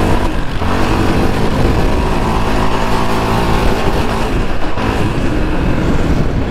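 Yamaha Raptor 700R sport quad's single-cylinder four-stroke engine through an aftermarket Monster exhaust, running under throttle while riding, its pitch rising and falling as the throttle is worked, with short dips about half a second in and again near five seconds.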